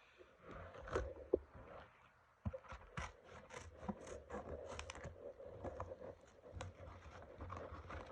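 Packing tape on a cardboard shipping box being cut through: a run of irregular scrapes, crackles and small clicks.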